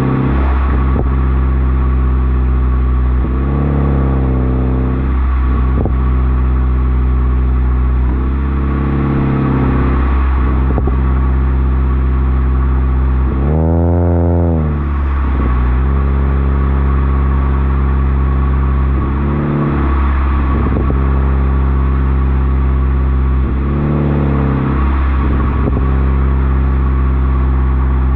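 2013 Toyota Corolla's four-cylinder engine running through a modified exhaust (aftermarket header, Loud Mouth resonator, secondary cat deleted, Borla axle-back), droning steadily. The pitch swells and drops back several times, with one fuller rev up and back down about halfway through.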